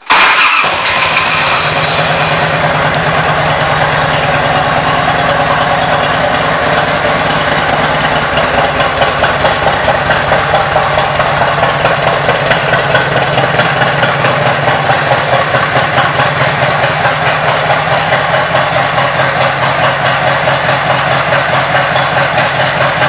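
A 1992 Harley-Davidson Electra Glide Classic's 1340 cc Evolution V-twin starts and settles into a steady idle, with an even pulsing beat that grows clearer from about eight seconds in.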